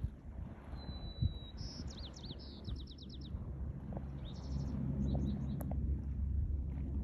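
A small bird singing: a held whistled note about a second in, then a quick run of chirps, and a shorter run of chirps a couple of seconds later. Under it runs a low steady rumble that grows louder about halfway through.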